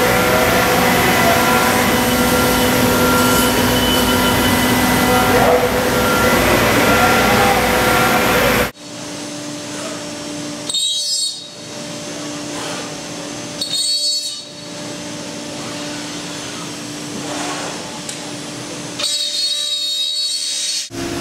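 5-axis CNC router's spindle running and cutting, loud and steady with a few held tones through the first eight or nine seconds. After a sudden drop it runs quieter with a steady hum, broken three times by brief louder cutting passes with a high ring.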